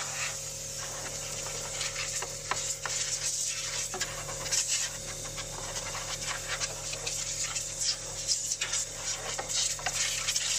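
Compressed-air blow gun blowing dust out of an empty air filter housing, a rushing hiss of air that surges and dips unevenly as the nozzle is moved about.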